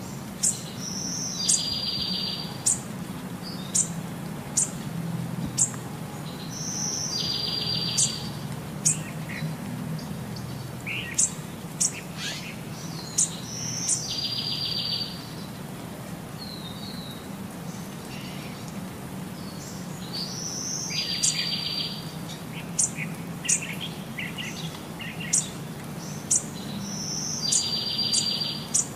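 Birds calling in a regular repeating cycle: short sharp high chirps and a fast trill lasting about a second, recurring about every six and a half seconds over a low steady hum.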